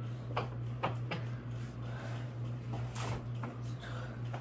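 A few short knocks and clicks of things being handled and set down, over a steady low hum.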